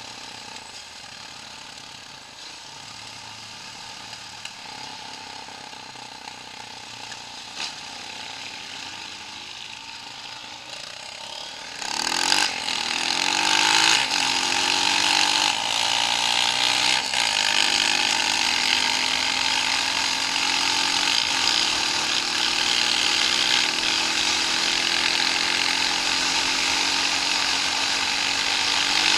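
Off-road vehicle engine running quietly, then about twelve seconds in it revs up, its pitch rising, and keeps running loud and steady with a rattling mechanical noise.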